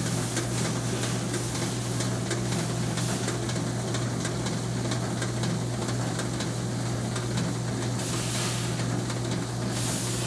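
Carter Day sizer tester running: a steady motor and aspirator-fan hum under a dense hiss and fine rattle of grain kernels passing through its rotating slotted drum. The hiss grows brighter for a moment about eight seconds in.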